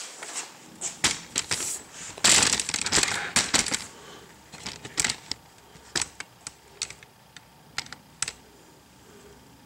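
Handling noise: a rustling scuffle about two seconds in, then a series of sharp clicks and light knocks that thin out towards the end, as the camera is moved and small engine parts and tools are handled.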